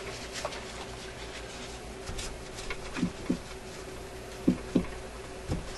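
Scattered light clicks and knocks of metal parts in an old RCA Victor record changer mechanism being worked by hand, over a faint steady hum.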